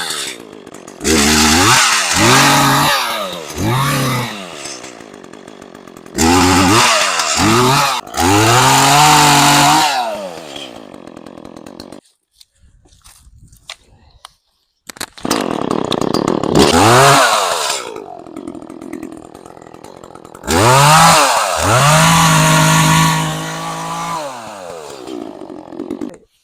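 Two-stroke chainsaw revving in four loud bursts, each climbing quickly in pitch and then holding, with quieter idling stretches and short silent breaks between them.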